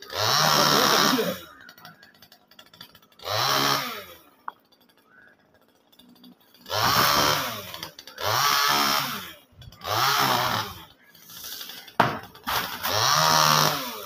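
Top-handle chainsaw revved in short bursts of about a second, about seven times, the engine climbing to full speed and dropping back between them while cutting the top of a coconut palm.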